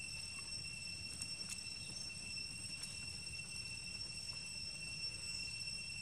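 Insects singing, a steady high drone held without a break, over a low rumble, with a few faint ticks.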